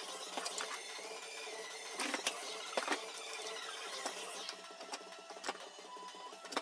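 Irregular clicks, knocks and rattles of an Evolution Rage-B circular saw being handled while switched off, its guard lever and adjustments worked by hand.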